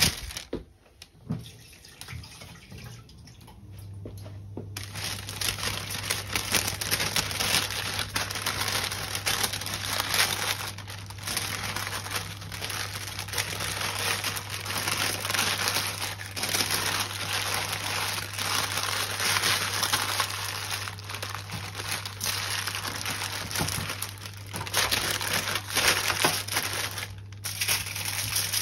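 Baking paper and kitchen foil crinkling and rustling as they are handled and folded over meat in a baking tray. Underneath, a steady low hum comes on a few seconds in.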